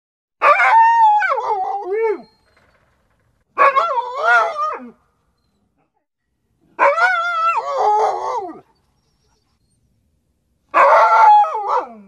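A dog howling: four drawn-out calls, each a second and a half to two seconds long, with short silences between them. The pitch wavers up and down and slides lower toward the end of each call.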